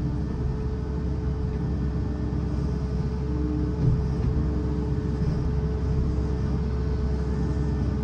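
Mini excavator's diesel engine running steadily under load, heard from the operator's seat, with a whine that comes and goes as the hydraulics work the bucket.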